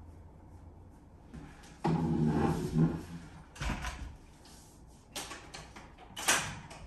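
Handling noise from a camera tripod and furniture being moved and set up: a few sharp knocks and clicks, with a short low hum about two seconds in.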